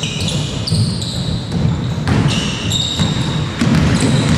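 Basketball play on an indoor court: sneakers squeaking sharply on the floor several times over the thuds of the ball bouncing and players running.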